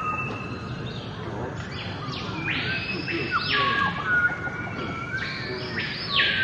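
Birds chirping and calling: short whistled chirps, with louder, harsher calls coming in pairs, the first pair about two and a half seconds in and the second about five seconds in.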